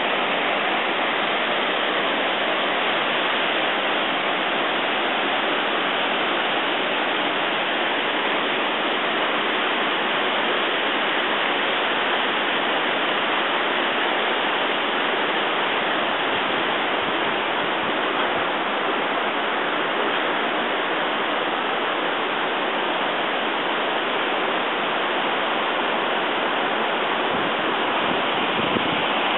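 Waterfall pouring down a rocky gorge in full flow: a steady, unbroken rush of water.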